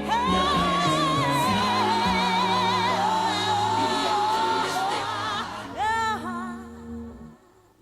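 Gospel song with a lead vocal holding long, wavering notes over sustained bass and chords. The music fades out near the end.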